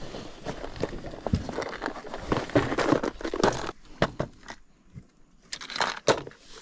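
Fishing tackle being handled: a clear plastic tackle box of hooks and lures is opened and rummaged through, giving a string of small plastic clicks, rattles and scrapes, with a short lull partway through.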